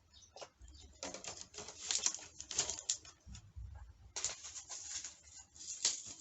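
Close-up eating and food-handling noises: irregular scrapes, clicks and rustles of utensils and food, in two bouts with a pause in the middle, and a few low thuds.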